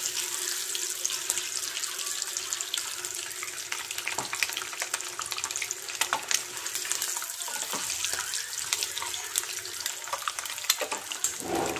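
Boiled eggs frying in hot oil in a nonstick kadhai: a steady sizzle with frequent crackles and pops as the oil spits around them.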